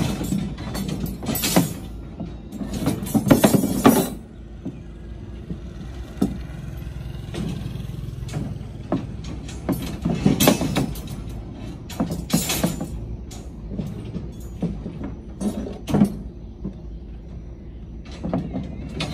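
Steel reinforcing bars clanking and scraping against each other and the formwork as they are handled. The sound comes in irregular bursts of sharp metallic strokes, loudest about three to four seconds in, over a steady low rumble.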